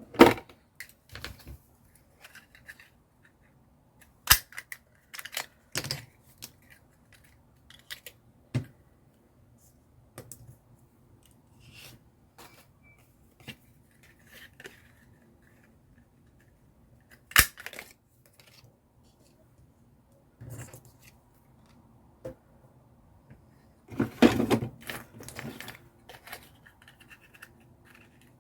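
Paper crafting at a desk: paper handled and cut with scissors, with scattered sharp clicks and taps and a cluster of them about 24 seconds in.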